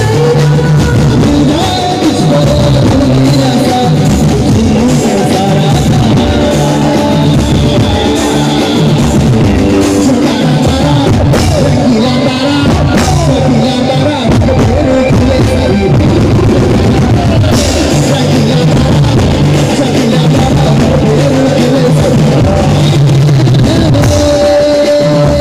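Loud garba dance music from a banjo band: a wavering melody with singing over drums and a heavy, stepping bass line.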